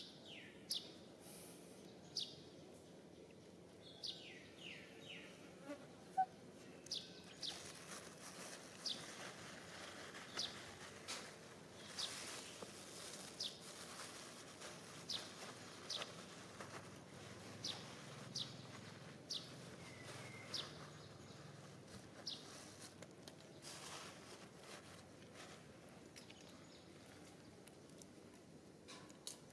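Faint outdoor ambience: short, high chirps that fall in pitch, repeating every second or two, over a steady insect hiss that comes in about seven seconds in.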